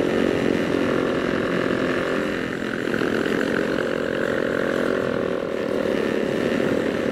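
Small single-cylinder motorcycle engine running steadily while riding, heard from the rider's helmet, with wind noise; the engine note dips slightly about two and a half seconds in, then holds steady.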